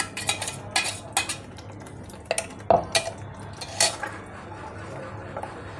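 Metal spoon clinking and scraping against a metal kadai while stirring a thick masala gravy: a run of sharp, irregular clinks, some ringing briefly.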